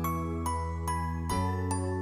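Background music: a light melody of separate notes over held low chords, with the chord changing about two-thirds of the way through.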